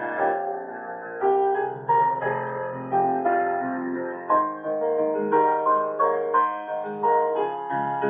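Solo piano music: slow chords and melody notes, each struck and left to fade.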